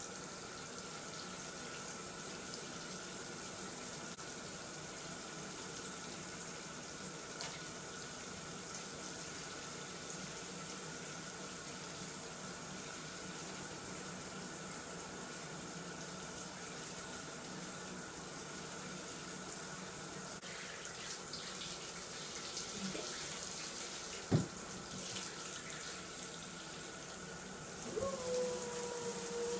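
Handheld shower head spraying water steadily onto a wet cat and the bath floor: an even hiss with a faint steady whistle-like tone under it. There is one sharp knock about 24 seconds in, and near the end a long pitched tone starts and slides slowly downward.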